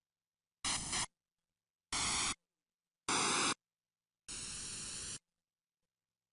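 DVD menu static sound effects: four short bursts of camcorder-style static hiss, each switched on and off abruptly with dead silence between them. The fourth burst is longer and quieter.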